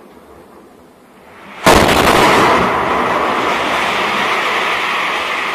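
A tank shell exploding close by: a sudden, loud blast about a second and a half in, followed by several seconds of echoing rumble that fades only slowly.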